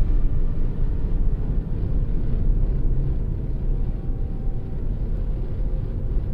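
A steady low rumbling noise, heaviest in the deep bass.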